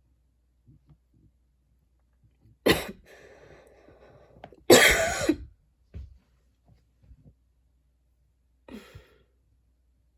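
A woman coughing: a single sharp cough about two and a half seconds in, a breath drawn in, then a longer, louder cough, and a weaker cough near the end.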